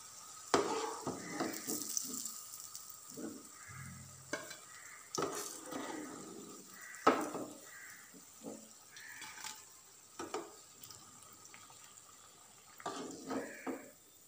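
Potato rings sizzling as they deep-fry in hot oil, while a metal slotted spoon scoops the finished rings out, knocking against the pan several times with scraping between the knocks.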